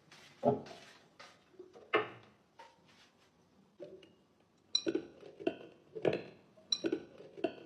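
A series of sharp clinks and knocks from hard objects, each with a short ring. There are a few scattered strikes early on, then from about halfway in a steady run of clinks about two-thirds of a second apart.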